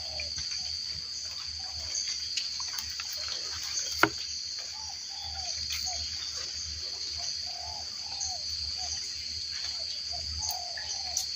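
Forest ambience: a steady, high insect chorus, with short low bird calls repeating through the second half and one sharp click about four seconds in.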